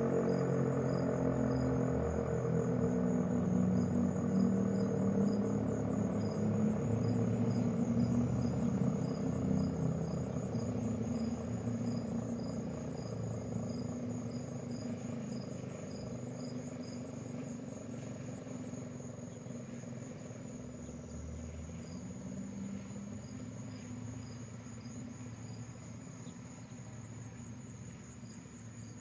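ACA P15 fire siren winding down after its test, its tone sliding slowly lower and fading away. Crickets chirp steadily throughout.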